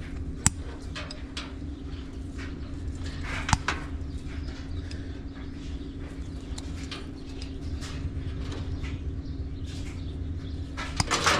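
Hand tool work on a washer wire harness: a couple of sharp snips or clicks a few seconds apart, consistent with wire cutters cutting through the harness, scattered small handling ticks, and a brief clatter of tools near the end, over a steady hum.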